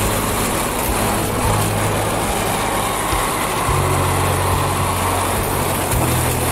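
An engine running steadily under a constant hiss, its low hum changing pitch about halfway through and again near the end.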